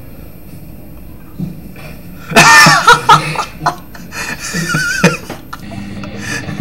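A young man laughing hard, breaking out suddenly a little over two seconds in and going on in several loud peals that fade out after about five seconds.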